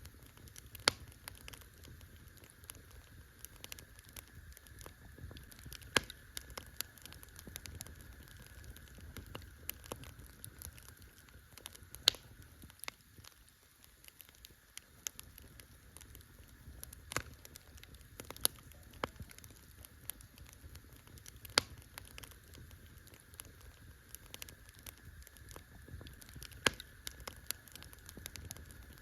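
Campfire crackling: irregular sharp pops and snaps, the loudest every few seconds, over a low steady rumble of the burning fire.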